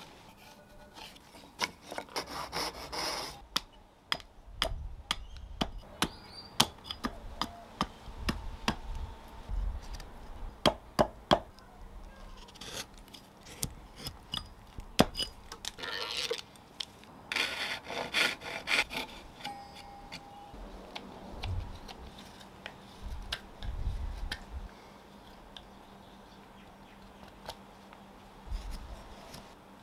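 Hand tools working a nectarine-wood fork blank: a fine saw cutting between the tines in quick scraping strokes, sharp chops of an axe on a wooden chopping block, and a knife paring off shavings, with quieter stretches towards the end.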